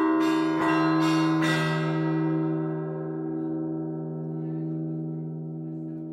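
Orthodox church bells ringing: four strokes in the first second and a half, then the striking stops and the low hum of the bells rings on, slowly fading.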